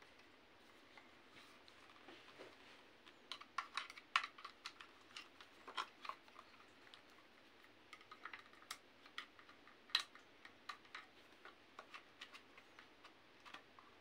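Scattered light clicks and plastic taps from handling a CYMA CM.041K airsoft gun's body and battery compartment, at an uneven pace, with two sharper clicks about four and ten seconds in.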